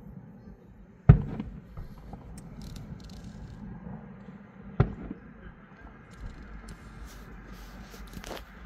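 Aerial firework shells bursting at a distance: two sharp booms, about a second in and nearly four seconds later, the first the louder, each trailing off in an echoing rumble, with fainter cracks in between and near the end.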